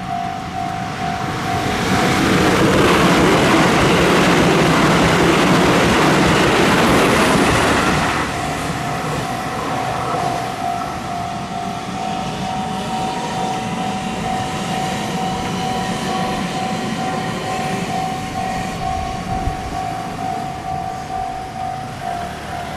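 Japanese level-crossing warning bell ringing in a fast repeating ding, drowned out for about six seconds by a train rushing loudly through the crossing. The bell then rings on over fainter train noise and stops near the end.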